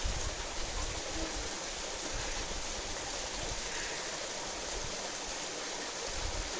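Steady rushing of a stream or waterfall, with irregular low rumbles underneath.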